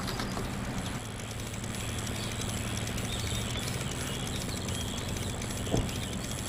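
Steady outdoor background with a low hum, broken by one short sharp click or knock near the end.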